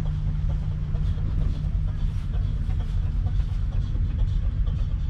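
Valtra T235 Active's 7.4-litre six-cylinder diesel engine idling steadily, a low, even rumble.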